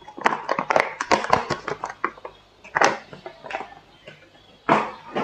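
Foil packet crinkling as it is handled: a dense run of sharp crackles in the first two seconds, then two shorter bursts.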